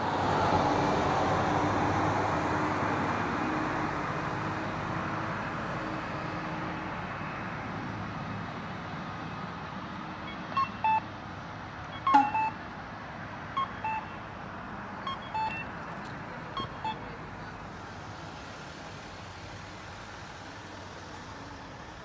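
Road traffic going by, its steady noise slowly fading; about ten seconds in, a pedestrian crossing signal starts sounding short electronic two-note beeps, a higher note then a lower one, repeating about every second and a half, five times.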